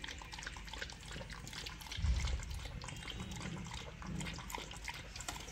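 Beagle eating wet food from a bowl: quick, wet licking and chewing clicks, with a dull low bump about two seconds in.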